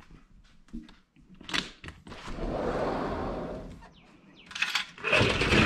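Sliding glass patio door being slid along its track: a short knock, then a long rolling slide about two seconds in, and a second loud sliding stretch near the end with a thin high squeal in it.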